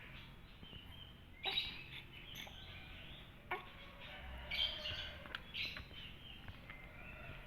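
Faint bird chirping: short, scattered chirps with a couple of sharp clicks, about one and a half and three and a half seconds in.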